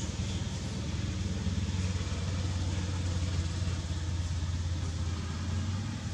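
Steady low hum of an engine running at idle, over a background hiss.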